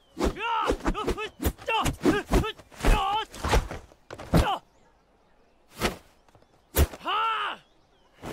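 A man giving a rapid series of sharp shouted martial-arts cries while performing a Changquan (long fist) form, each cry with the swish and smack of a strike. After a short lull come two more sharp hits and one longer shout near the end.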